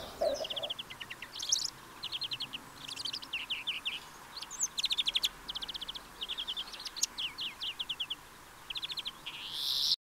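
A songbird singing in short phrases, each a quick run of evenly repeated high notes lasting under a second, changing from phrase to phrase. A rising rush of noise comes right at the end.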